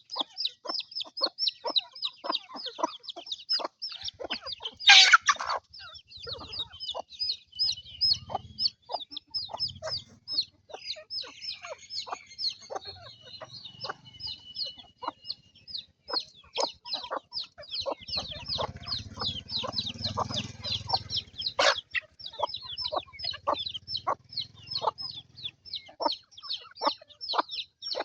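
Chickens calling: a steady run of quick, high, falling calls, about three a second, with a louder, harsher call about five seconds in and another sharp call near the end.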